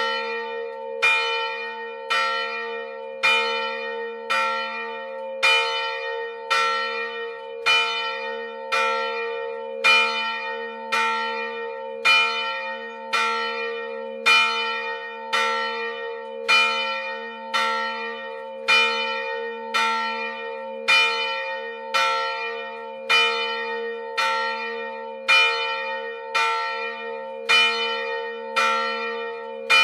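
A single swinging church bell struck by its clapper at a steady pace of about once a second, each stroke ringing on into the next so that a deep hum is held throughout.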